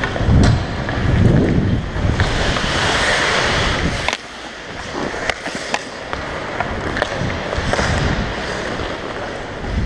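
Ice hockey skate blades scraping and carving on the ice, with a longer, stronger scrape about two to four seconds in that cuts off sharply. Sharp clacks of sticks and puck come scattered through, and low wind rumble on the helmet-mounted microphone is heard in the first couple of seconds.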